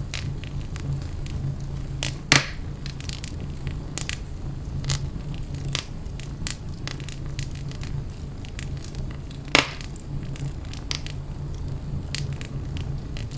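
Wood fire burning in a fireplace, crackling with frequent small snaps and two louder pops, over a low steady rumble.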